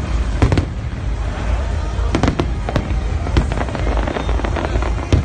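Fireworks display: sharp bangs and cracks going off irregularly, several close together about half a second in and again around two to three seconds in, over a continuous low rumble.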